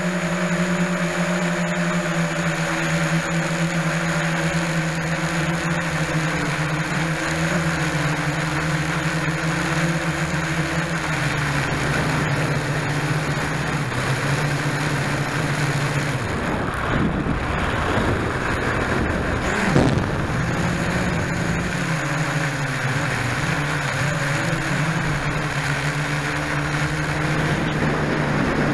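Small quadcopter's motors and propellers whining steadily, heard close up from the camera mounted on the craft. The pitch steps down slightly about a third of the way in. About two-thirds through, the whine wavers and breaks up for a few seconds, with one brief bump.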